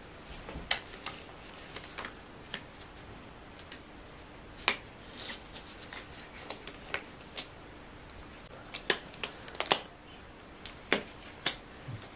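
Thin rubber gloves being pulled onto the hands: irregular sharp snaps and crinkles of the stretching glove material.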